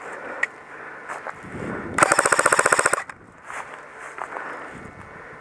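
Airsoft gun firing a rapid full-auto burst lasting about a second, starting about two seconds in, with fainter scattered shots around it.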